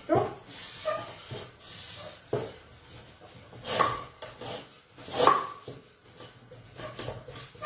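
Wooden rolling pin rolled back and forth over a pasta sheet on a chitarra, pressing the dough through the wires to cut tonnarelli. Wood rubs and presses in a run of separate strokes, the loudest two near the middle.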